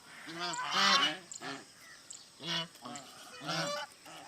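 Goose honking repeatedly: a run of short, nasal honks, the loudest cluster about a second in, with further calls near the middle and end.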